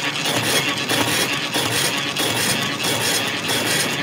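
Metal lathe's cutting tool facing a spinning cast-iron wheel blank, a steady scraping grind of the cut.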